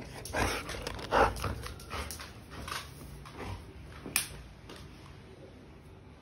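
Golden retriever puffing and snuffling in short bursts, about one a second, as it mouths a small green plastic toy, with a sharp click about four seconds in.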